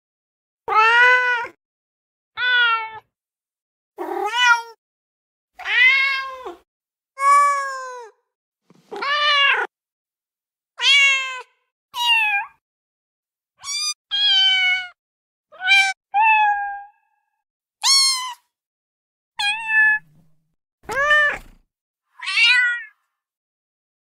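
A string of about fifteen separate domestic cat meows, each under a second long and many arching up then down in pitch. The pitch differs from call to call, and there is silence between them.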